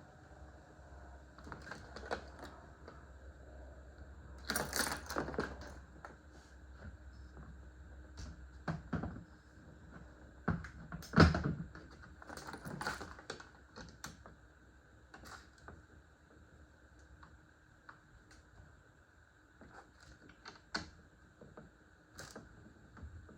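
Scattered clicks, taps and knocks of parts being handled and fitted under a car's hood as a reservoir is put back in place. There is a cluster of knocks about five seconds in, and one sharp knock about eleven seconds in is the loudest.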